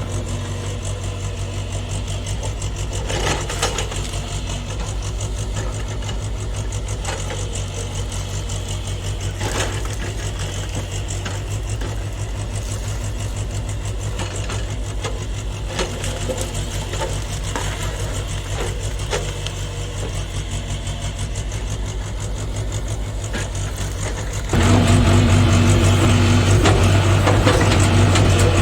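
JCB JS81 excavator's diesel engine running steadily, with a few sharp knocks scattered through. About 25 seconds in it suddenly gets louder and stays that way.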